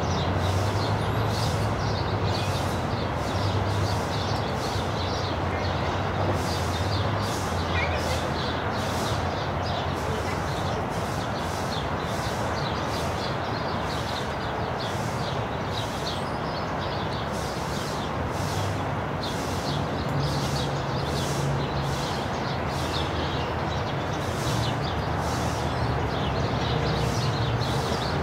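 Steady outdoor background noise, a broad hiss with a low rumble, overlaid by short high-pitched ticks or chirps repeating irregularly about once or twice a second.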